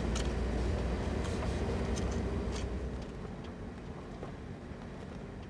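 Car engine and road noise heard from inside the cabin: a steady low rumble with a few light clicks. It drops away about three seconds in and keeps fading towards the end.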